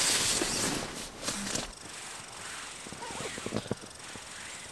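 Fabric rustling and camping gear being handled inside a tent, loudest for the first second and a half, then quieter handling with a few small knocks and clicks as a stove fuel canister is taken out.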